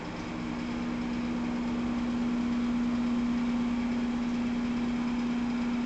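A machine running steadily with a strong, even hum, growing a little louder over the first two seconds; no separate blows stand out.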